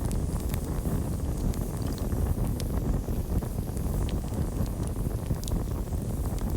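Campfire burning: a steady low rumble of flames, with scattered sharp crackles and pops from the burning wood.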